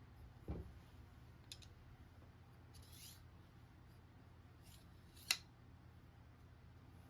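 Quiet handling sounds: a soft knock near the start, a few faint clicks and short rustles, and one sharp click about five seconds in.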